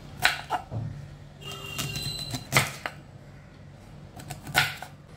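Kitchen knife slicing a peeled pear into thin pieces on a wooden chopping board, the blade striking the board in several sharp taps at irregular intervals.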